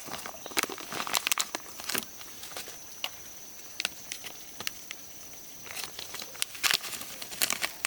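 Crackling and rustling of dry material being disturbed, in two spells: one about a second in and another near the end. A faint steady high tone runs underneath.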